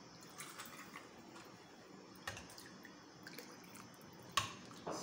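Faint clinks and taps of a steel ladle against a steel pot and small steel tumblers as syrup is poured into them, with soft pouring and dripping of the liquid. There are a few separate taps, the sharpest near the end.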